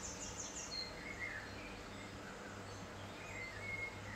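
Birds chirping outside through an open window: a quick trill of high notes in the first second, then scattered short chirps, over a steady low hum and background noise.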